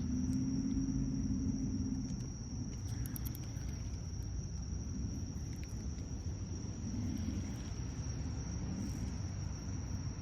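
Pond night chorus: frogs calling, with one low drawn-out call in the first two seconds, over a steady high-pitched insect drone and a low rumble.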